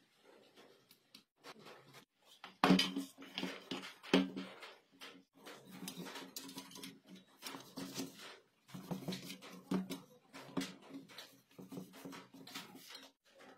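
Workbench handling of a welding machine's sheet-steel casing: irregular clicks and knocks, the loudest about three seconds in, with cloth rubbing on the metal as it is wiped. A low droning tone comes and goes under the handling.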